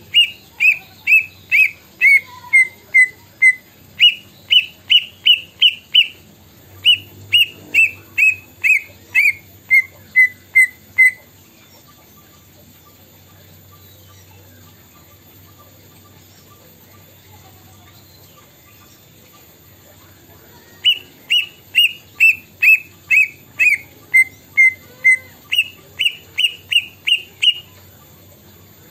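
Caged green leafbird (cucak ijo) singing its mimicked kedasih (plaintive cuckoo) call: runs of clear whistled notes stepping down in pitch, alternating with quick runs of higher notes. It sings in two bouts with a pause of about ten seconds between them.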